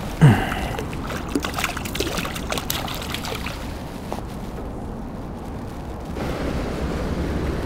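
Water splashing as a hooked crucian carp thrashes at the edge of the bank and throws the hook, with one sharp splash about a quarter second in, then scattered small splashes and ticks. A steady rushing noise rises about six seconds in.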